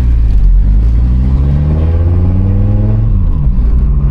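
Highly tuned 2.4-litre five-cylinder engine of a Fiat Marea, heard from inside the car: it runs at low revs, climbs in pitch from about a second in, then drops back sharply a little after three seconds as the throttle is lifted.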